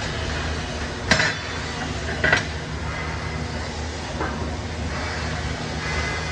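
Steady low drone of factory machinery, with two sharp knocks about a second and two seconds in.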